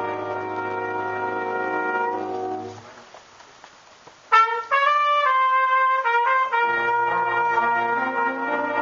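School jazz band playing a slow ballad: a sustained full-band chord fades out into a short pause. A solo trumpet then enters loudly and plays a short phrase of a few notes on its own, and the full band comes back in under it with a sustained chord.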